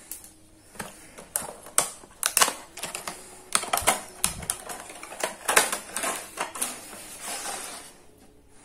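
Stiff clear plastic packaging crackling and clicking irregularly as it is handled and pulled open around a fishing rod's handle section.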